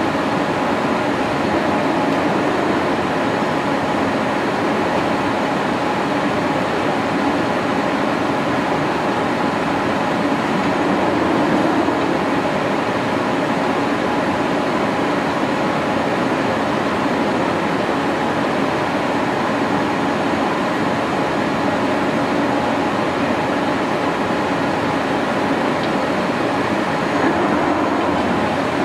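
Poreba TPK90A/3M heavy-duty engine lathe running under power, its two-speed motor and headstock gearing turning the spindle: a loud, steady mechanical whir with faint steady tones in it.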